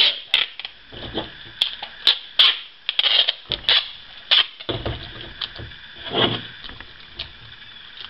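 Clear packing tape being pulled off its roll and wrapped around a cardboard mailing tube, in a series of short pulls mixed with clicks and knocks as the tube and tape roll are handled.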